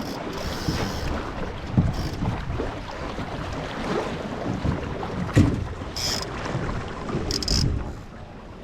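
Wind buffeting the microphone over water rushing along a Melges 15 sailing dinghy's hull, with louder low buffets about two and five and a half seconds in and brief hissy splashes near the end.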